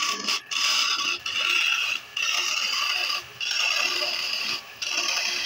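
Turning tool cutting a wooden spindle spinning on a wood lathe: a loud scraping hiss in passes of about a second each, broken by four short gaps as the tool comes off the wood.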